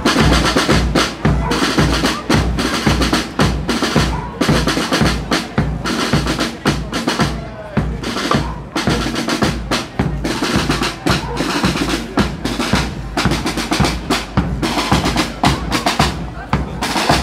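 Marching band's snare and bass drums playing a march beat, the strokes coming quickly and evenly.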